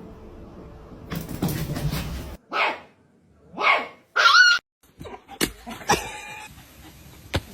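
Dog barking: two short barks, then a higher, yelping bark, followed by a few sharp clicks and knocks.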